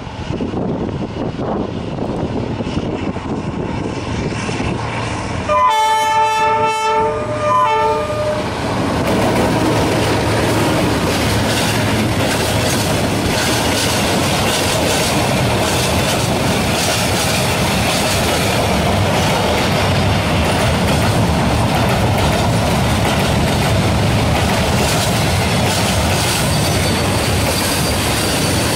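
Vietnam Railways D19E diesel-electric locomotive hauling a freight train approaches with its engine running and sounds its multi-tone horn for about two seconds a few seconds in. Then the wagons roll past close by with a steady rumble and the clickety-clack of wheels on the rails.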